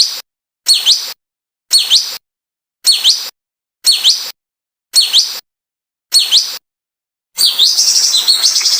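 Recorded songbird song played as masteran for training caged birds. A short, high, chirped phrase with a quick downward sweep repeats about once a second, seven times, with dead silence between. Near the end comes a longer run of rapid high chirps.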